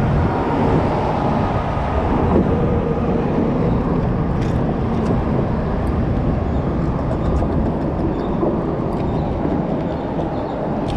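Steady, loud, low rumbling noise with no distinct events, from wind and choppy water around a small boat under a traffic bridge. A few faint ticks come about halfway through.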